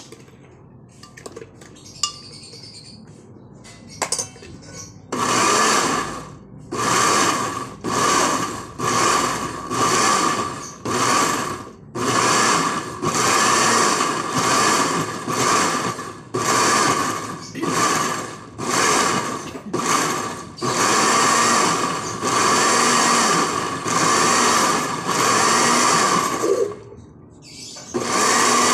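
Countertop electric blender pulsing through thick jackfruit mash, its motor starting and stopping in short bursts about a second apart, with a brief pause near the end. It opens with a few light clicks and knocks, and the pulsing begins about five seconds in.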